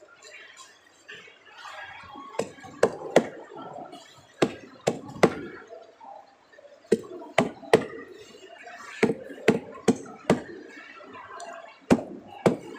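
A knife being hammered down through a threadfin fish into a wooden chopping block to cut it into steaks: sharp knocks in quick groups of two or three, repeated every one to two seconds.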